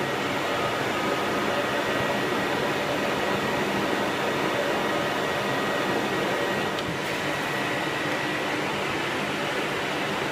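Household vacuum cleaner running steadily: a constant motor rush with a faint high whistle that drops away a little before the end.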